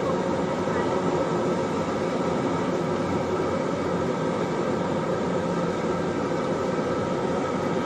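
Turboprop engine and four-blade propeller running steadily, heard from inside the aircraft cabin as the plane taxis: a constant drone made of several steady tones over a hum.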